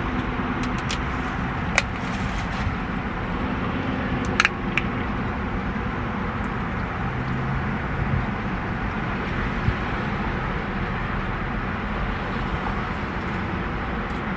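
Steady hum and hiss of a car's cabin, with a few small clicks about two and four and a half seconds in.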